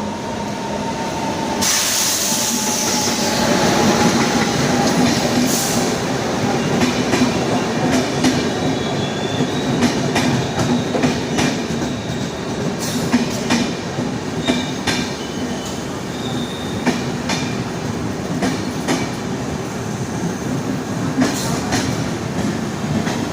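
Howrah–Yesvantpur Express train running steadily, its wheels clacking sharply and irregularly over the rail joints.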